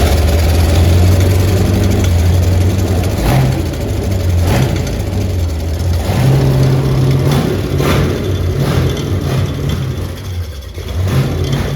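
Hot-wired Ford 351 Cleveland V8 running on its first start after decades out of service, fed on gas poured in to prime it. It revs up and down unevenly.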